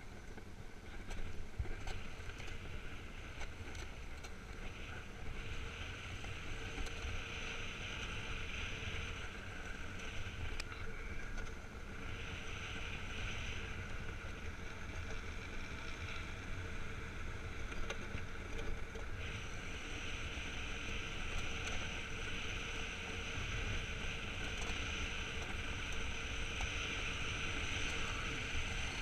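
Iceboard gliding fast over clear lake ice: the runners give a steady hiss on the ice that swells and eases every few seconds, over a low rumble of wind on the microphone.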